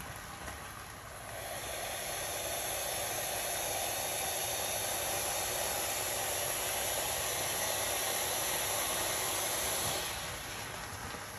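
Boiling water being run off for the pot: a steady hissing rush that starts about a second in and stops near the end.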